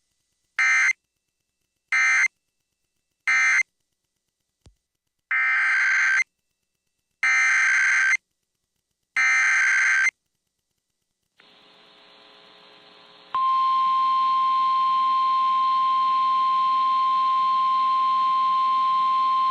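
Emergency Alert System digital data tones. Three short screeching bursts mark the end of the tornado warning, then three longer bursts carry the header of the next warning. After a faint hiss, the steady single-pitch Weather Radio warning alarm tone begins about two-thirds of the way in and holds.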